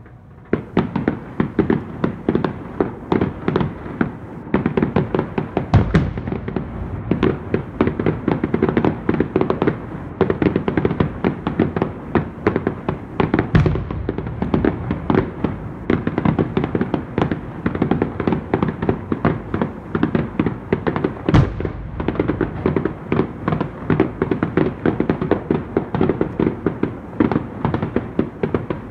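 Fireworks display: a rapid, continuous string of bangs and crackle starting about half a second in, with a few heavier booms standing out every seven to eight seconds.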